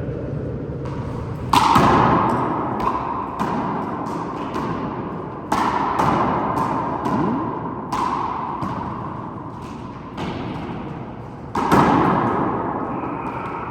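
A handball rally: a rubber handball smacked by hand and hitting the court walls, a string of sharp slaps each followed by an echoing, ringing tail. The three loudest come about a second and a half in, about five and a half seconds in, and near the end, with lighter hits between them.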